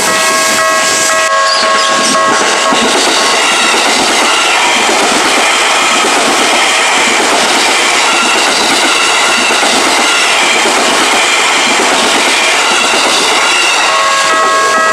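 A train passing through a Japanese level crossing, its wheels clattering steadily over the rails. The crossing's Tokyu-type electronic warning bell rings at the start, is drowned out by the train about two seconds in, and is heard again near the end.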